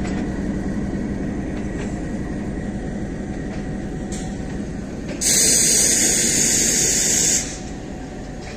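Passenger coaches of a departing train rolling slowly past, a steady rumble of wheels on the rails. About five seconds in, a loud hiss starts suddenly, lasts about two seconds and cuts off just as suddenly.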